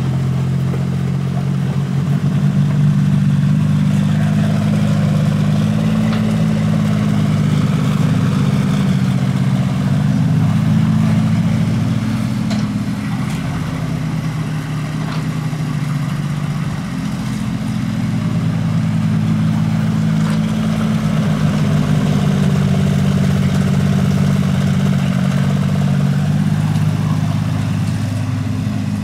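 Diesel engine of a Hitachi EX33 mini excavator running steadily while it digs mud with its bucket. The note swells and eases in long stretches as the hydraulics work the arm.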